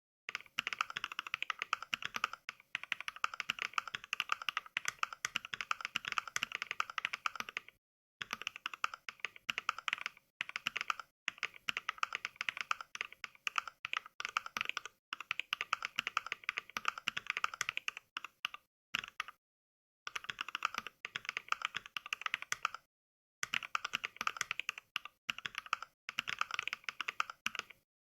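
Rapid touch-typing voiced by Mechvibes software playing the 'NK Cream' mechanical-keyboard sound pack: a fast stream of key clicks with short pauses every few seconds, where the sound drops to complete silence.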